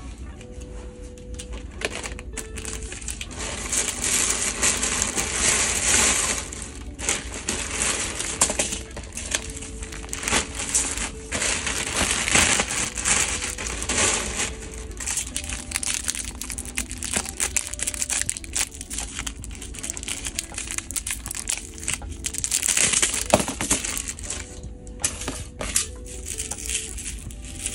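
Clear plastic packaging bags crinkling and rustling as they are handled, with clicks and taps of small plastic cases and packets, over quiet background music.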